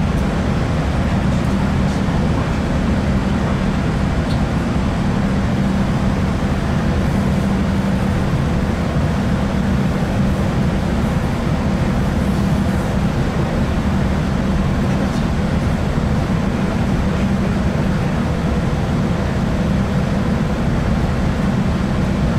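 Onboard running noise of a Class 165 diesel multiple unit at speed: a steady drone and low hum with constant wheel-on-rail rumble.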